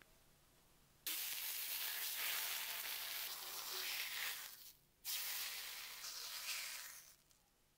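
Steady hissing noise in two stretches. It starts abruptly about a second in, stops briefly just past the middle, then starts again for about two seconds before dying away.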